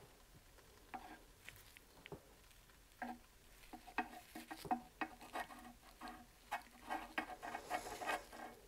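Faint, irregular light taps and rattles from a small metal tiller fuel tank being tilted and handled in gloved hands, with loose debris shifting inside.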